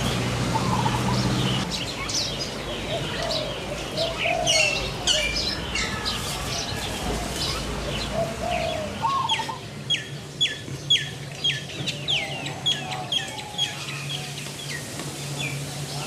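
Several birds chirping and calling together, high quick chirps over some lower warbling calls. In the second half one bird repeats a sharp, down-sweeping call about twice a second. A low steady hum sits under the birds at the start and returns near the end.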